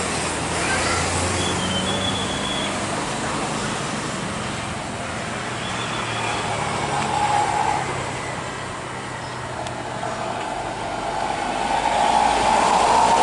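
Airbus A320 airliner's jet engines running at taxi power: a steady rumble with a whine that grows louder near the end as the jet draws closer.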